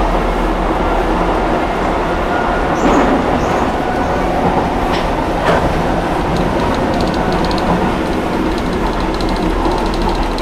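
Docklands Light Railway train running along the track, heard from inside the car as a steady rumble of wheels on rail. There are brief clicks from the rails about three and five and a half seconds in, and a faint rapid ticking from about six seconds on.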